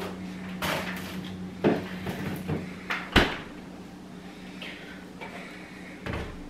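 Kitchen knocks and clunks as an ice cream tub is put back in the freezer and the door is shut, the sharpest thud a little past three seconds in. Near the end a plastic jug of milk is set down on the countertop with a dull thump, over a steady low hum.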